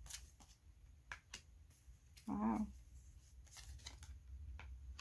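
Divination cards being handled and laid down on a cloth-covered table: a few soft clicks and snaps from the deck and the cards being set down. About halfway through comes a brief pitched vocal sound, which is the loudest thing.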